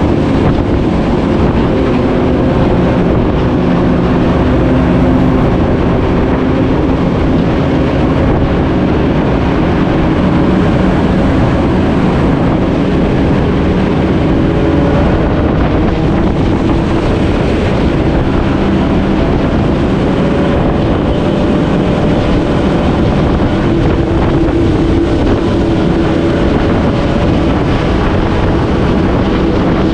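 Benelli TNT 600i inline-four engine running under way, its note drifting slowly up and down, buried in heavy wind rush on the microphone.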